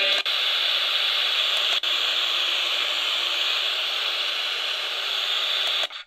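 FM radio static hiss from a Midland ER50 emergency weather radio's speaker, tuned between stations during a band scan. The hiss drops out twice very briefly near the start and stops just before the end.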